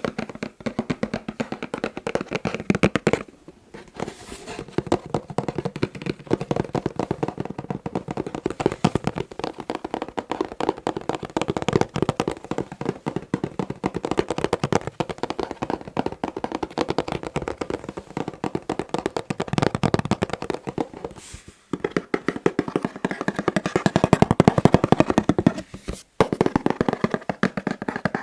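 Fast tapping with fingers on boxes: a dense, rapid run of many small taps a second. It breaks off briefly a few seconds in and twice more near the end.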